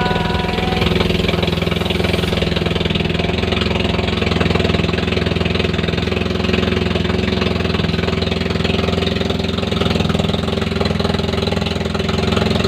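Inboard engine of a motorised outrigger boat (bangka) running steadily at a constant pitch while under way.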